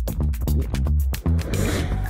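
Upbeat electronic background music with a steady beat and deep bass, with a short hissing swell near the end.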